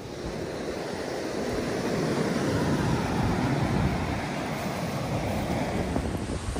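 Wind rumbling on the microphone over the wash of waves breaking on a beach, a steady noise that swells slightly midway.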